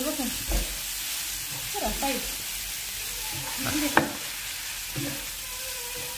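Minced chicken and rice vermicelli sizzling in a hot nonstick frying pan while being tossed and stirred with two wooden spoons, with scattered knocks of the spoons against the pan and one sharp clack about four seconds in.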